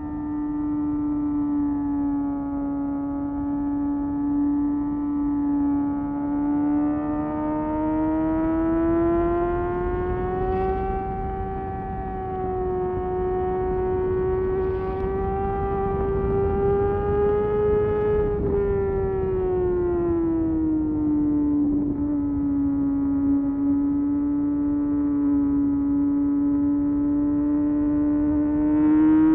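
2022 Kawasaki ZX-6R's 636 cc inline-four engine running at a held, steady speed. Its pitch climbs slowly for about ten seconds, then eases back down and holds steady again.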